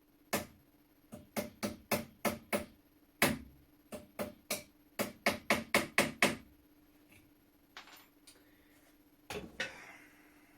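Hammer striking a pin punch about seventeen times in quick, uneven blows, driving a rust-seized part out of an antique flintlock shotgun's wooden stock. A few softer handling knocks and a brief scrape follow near the end.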